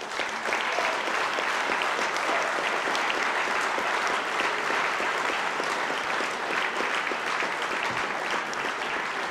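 Applause from a large seated audience: many hands clapping in a steady, dense patter that eases a little near the end.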